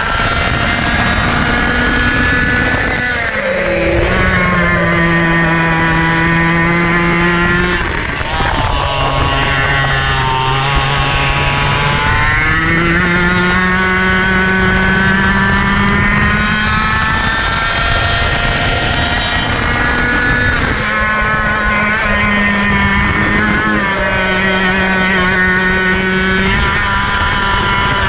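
KA100 kart's 100cc single-cylinder two-stroke engine running hard on track, its pitch dropping sharply several times and climbing again between, as on a lap through corners and straights.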